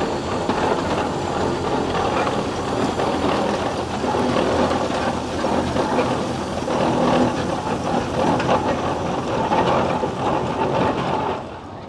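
Gaar-Scott steam traction engine driving slowly past at close range, with a continuous loud clatter of running gear and steel lugged wheels on gravel. The sound drops off sharply just before the end.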